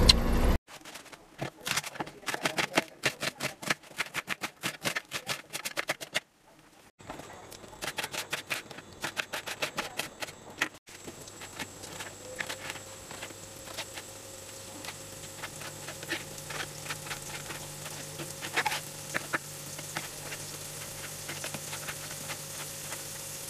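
Kitchen knife slicing raw chicken breast on a cutting board: quick taps each time the blade meets the board, in runs with short pauses. About halfway through, a steady hum comes in under lighter, sparser cuts.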